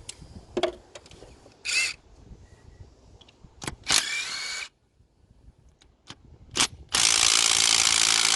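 Compressed air from a blow gun blasting debris out of the glow plug wells of a diesel engine before the plugs are unscrewed: two short bursts, then a long loud blast starting about seven seconds in, with a few clicks and knocks of tool handling between.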